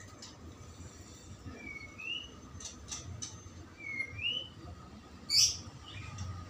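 A small bird chirping a few short rising calls, with a few faint clicks around the middle and one louder, brief scratchy noise a little after five seconds in.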